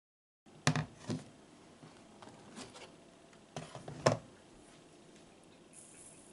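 Light clicks and taps from small kitchen utensils being handled, in two short clusters. Near the end comes a brief soft hiss as sugar pours from a miniature spoon into a tiny plastic bowl of butter.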